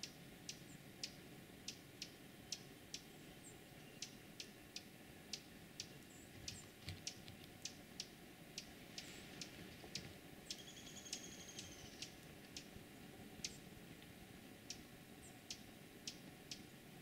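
Quiet marsh ambience with irregular sharp high ticks, about one or two a second, and a few faint thin high calls. A short high two-tone whistle comes a little past ten seconds.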